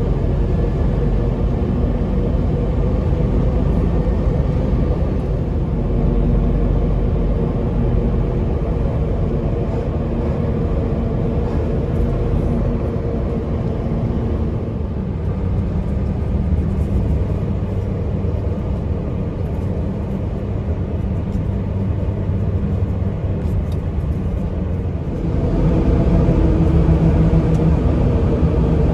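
Steady driving noise from inside a moving road vehicle: engine hum over tyre and road rumble. About 25 seconds in it gets louder and the engine note changes.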